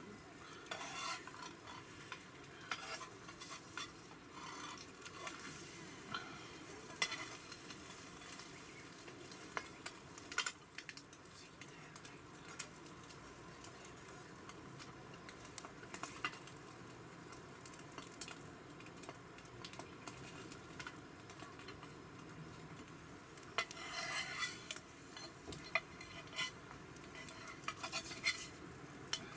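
Egg omelette sizzling in a nonstick frying pan, with a metal spatula scraping and tapping against the pan at irregular moments as the omelette is folded and turned.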